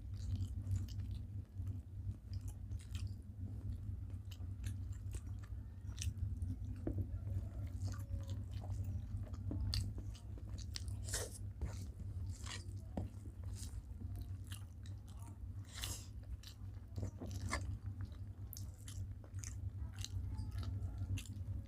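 Close-up eating sounds of rice and curry: chewing, mouth smacks and an occasional crunch, as short scattered clicks. A steady low hum runs underneath.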